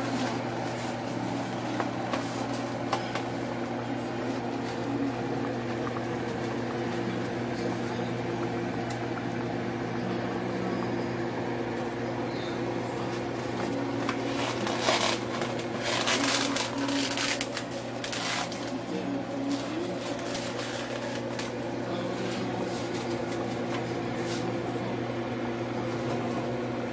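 Steady mechanical hum, like a kitchen fan or appliance running, with a few short rustling and clattering noises in the middle.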